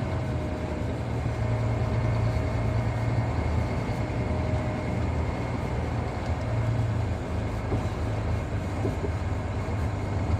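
Heavy diesel engine running steadily under a low rumble, with a thin steady whine on top.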